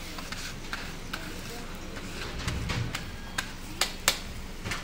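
Metal spatula striking and scraping a flat iron griddle while chopping and gathering kothu parotta, sharp metal clinks at irregular intervals over a faint sizzle.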